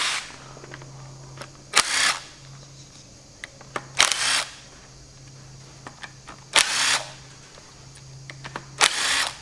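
Cordless impact wrench with a 9/16 socket rattling bolts loose on a cast-iron tractor gearbox cover plate: five short bursts about two seconds apart, with small metallic clicks of the bolts being handled between them.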